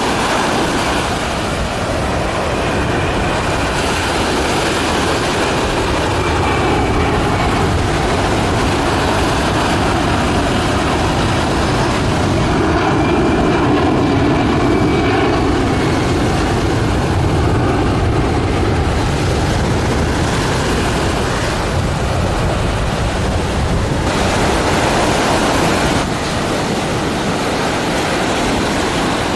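Jet noise from a low-passing Boeing C-17 Globemaster III's four turbofan engines: a loud, steady rush with a faint high whine now and then.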